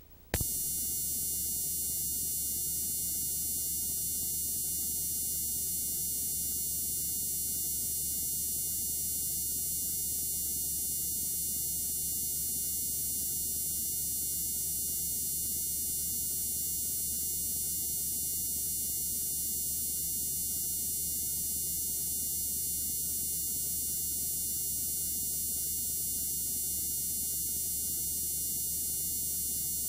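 Steady electronic buzz and hiss with a low hum underneath, switching on abruptly under half a second in and then holding unchanged: signal noise on the recording after the programme has ended, with nothing on the picture.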